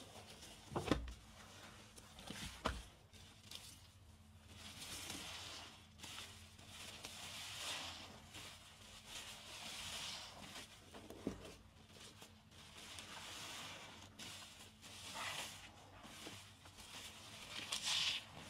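Soapy car sponge squeezed and released again and again, a wet squishing of suds swelling up every two to three seconds. A few dull knocks come near the start and once midway.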